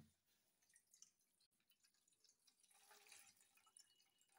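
Very faint drips and a thin trickle of hot water poured from a steel pan through a strainer into a steel bowl, draining soaked boondi.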